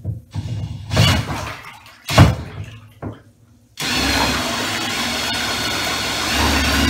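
Propeller of an old Yamaha electric trolling motor churning water in a bathtub: a few uneven splashing surges over the first three seconds, then steady churning from about four seconds in, pushing the water hard.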